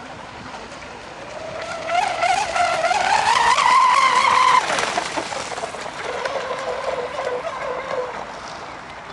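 Radio-controlled catamaran speedboat driven by a Lehner brushless electric motor, running at speed with a high motor whine that rises in pitch and grows loud, then drops off suddenly about four and a half seconds in, leaving a fainter whine that fades away.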